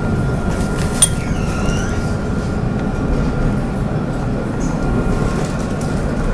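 Tram running on its rails, heard from inside the car: a steady low rumble with a faint steady whine over it. A sharp click about a second in is followed by a brief high squeal.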